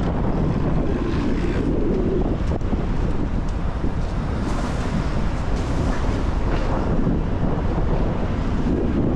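Steady low rumble of wind buffeting the microphone during a rainstorm, mixed with city traffic noise, with a couple of brief hissing swells midway.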